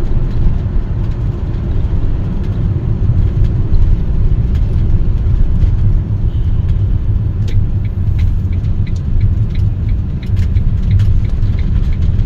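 Steady low rumble of a motorhome driving, engine and road noise heard from inside the cab. About halfway through, a light, evenly spaced ticking joins it.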